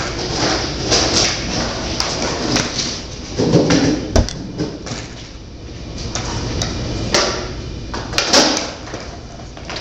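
Skateboard wheels rolling on a concrete floor, with several sharp knocks of the board hitting the floor, the loudest about four seconds in.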